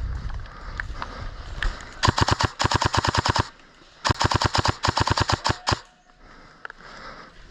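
Airsoft gun firing two rapid full-auto bursts, each about a second and a half long, with half a second between them.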